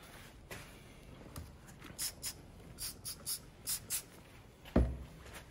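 Gloved hands scrubbing a grimy PCV valve part with a cloth: a run of short scratchy strokes, then a single low thump near the end.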